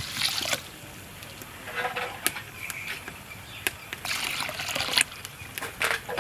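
Water being poured and trickling in several short pours, with scattered clicks and knocks of kitchen utensils.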